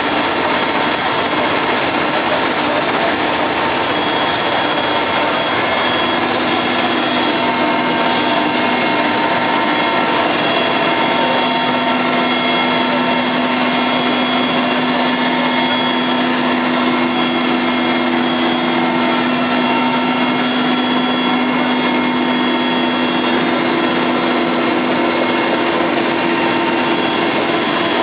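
Helicopter in flight: a steady, loud engine and rotor noise with several held tones that do not change.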